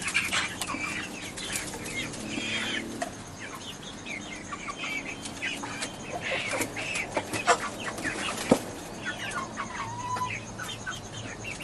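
A flock of domestic chickens clucking and calling, many birds overlapping. Two sharp taps, about a second apart, come just past the middle.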